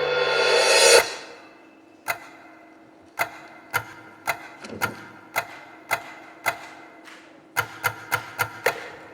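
Stage performance music: a loud swell that cuts off abruptly about a second in, then sharp ticking percussion strikes roughly twice a second over a faint held tone, with a quick run of strikes near the end.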